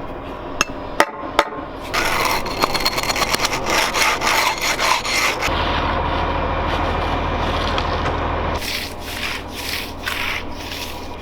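Hand tool scraping and rubbing across wet concrete in quick, repeated strokes, cutting control joints into a fresh slab. A few sharp clicks come about a second in, and a steady low hum sits under the scraping in the middle.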